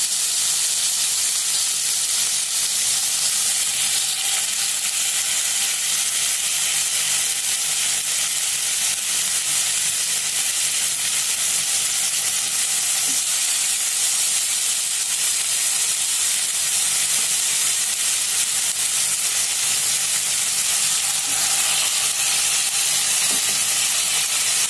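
Soy-sauce-marinated chicken drumsticks sizzling steadily in hot oil in a non-stick pan as the pieces are laid in one by one.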